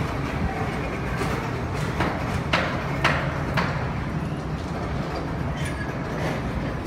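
Steady low rumble of background noise, with four short scrapes between about two and four seconds in as a long catch pole is worked against the wall and ceiling.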